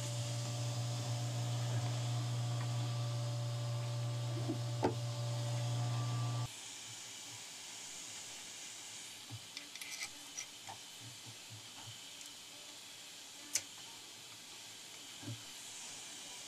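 A steady low hum that cuts off abruptly about six and a half seconds in. After it come scattered light clicks and taps of metal frame parts and a hex screwdriver being handled while the 3D printer's gantry frame is screwed to its base, with one sharper click near the end.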